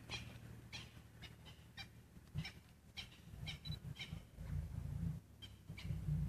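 Lion cubs play-wrestling in dry grass, with low, broken growling from about halfway in and a scattering of short, high chirps throughout.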